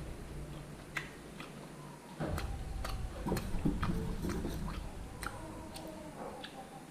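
A person chewing steamed dog meat with chewy, crisp skin, with scattered light clicks.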